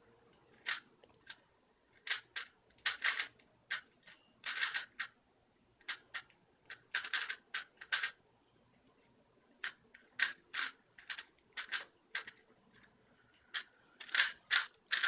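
Rubik's cube being turned fast in a speedsolve: irregular flurries of plastic clicks and clacks with short pauses between them.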